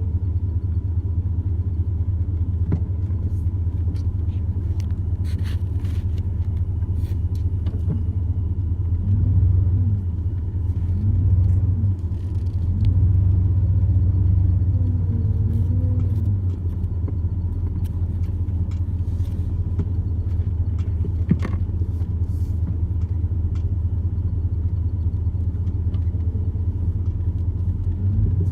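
Steady low rumble, with a few short rising-and-falling tones from about nine to sixteen seconds in.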